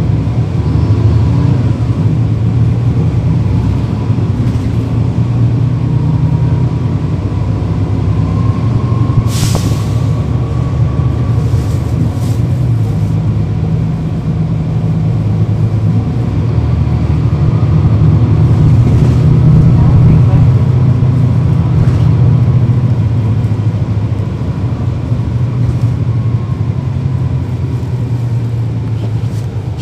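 The Cummins ISL9 diesel engine of a 2012 NABI 40-SFW transit bus, heard from on board, running under way with a thin whine that rises and falls, and pulling harder and louder about two-thirds of the way in. A short, sharp hiss about nine seconds in.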